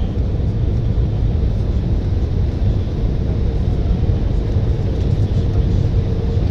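Steady low cabin rumble inside an Embraer 175 jet on its landing approach, from its under-wing GE CF34 turbofans and the air rushing past the fuselage, with a faint steady hum above it.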